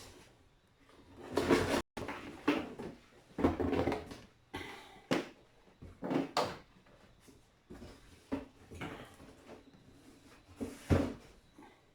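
A handheld steam cleaner and its attachments being handled, making a series of irregular knocks and clunks, the loudest one near the end.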